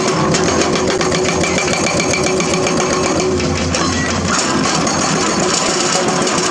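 Komatsu hydraulic excavator's diesel engine running steadily with a fast mechanical clatter.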